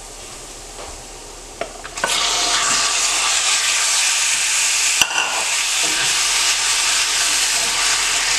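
Frozen raw boneless chicken pieces going into hot coconut oil and fried chilli masala in a cast iron skillet. The gentle frying sizzle jumps to a loud, steady sizzle about two seconds in and keeps going as a wooden spatula stirs. A single sharp tap sounds about five seconds in.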